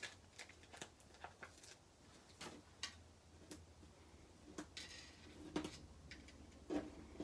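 Faint scattered clicks and small taps of paper and adhesive being handled on a craft table, with a short papery rustle about five seconds in, as foam adhesive dimensionals are peeled and pressed onto a card layer.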